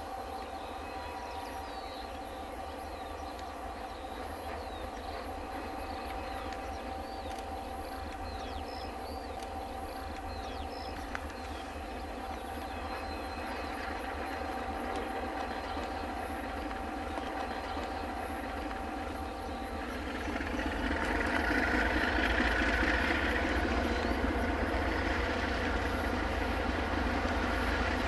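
Diesel-electric locomotives DXB 5068 (GE) and DFB 7241 (EMD-type) running steadily as they haul a train of milk tank wagons toward the listener. The sound grows louder about 20 seconds in as the train draws nearer.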